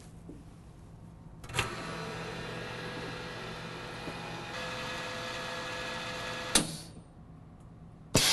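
MVS 31X chamber vacuum sealer running a cycle. About one and a half seconds in a click starts a steady vacuum-pump hum that runs for about five seconds, then a sharp click stops it. A short quiet pause follows while the bag is sealed, and near the end a loud rush of air comes back into the chamber.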